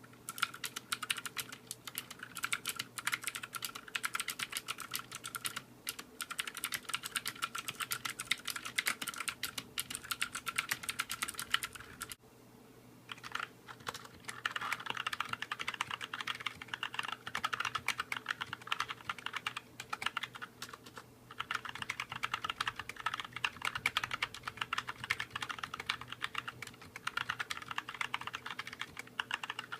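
Continuous fast typing on a budget mechanical keyboard with Gateron switches, a dense stream of key clicks. About twelve seconds in the typing stops briefly, then resumes with a noticeably different click tone.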